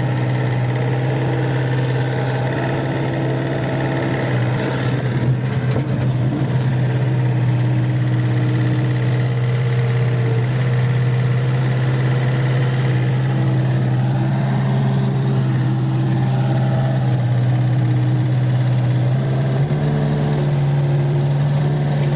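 Kobelco SK 50 P mini excavator's diesel engine running steadily, its note stepping up slightly near the end.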